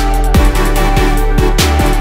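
Background electronic music with a heavy bass that swoops down in pitch several times.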